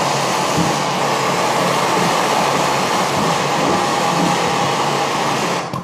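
Handheld gas torch burning with a steady hiss while it reheats a soldered copper pipe joint to reflow solder over pinholes; the hiss stops abruptly near the end.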